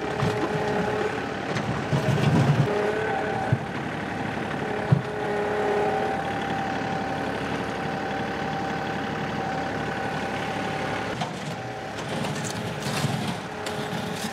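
John Deere 2038R compact tractor running under load as its loader bucket scrapes and pushes dirt, with a steady whine that shifts in pitch. Two sharp knocks come a few seconds in.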